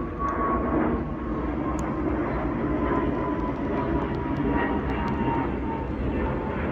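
Twin-engine jet airliner flying overhead: a steady jet engine rumble with a thin whine that slowly falls in pitch as the plane passes.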